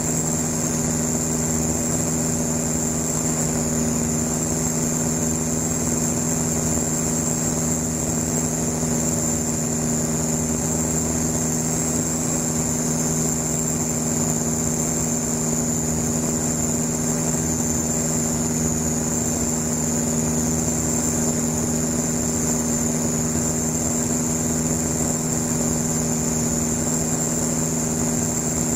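Van's RV-7 light aircraft's piston engine and propeller droning steadily, heard from inside the cockpit, with a steady high-pitched whine over it.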